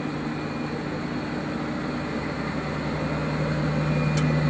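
Steady hum of the space station module's ventilation fans and equipment: a low drone with a steady tone in it over an even rush of air, growing a little louder near the end, with one small click.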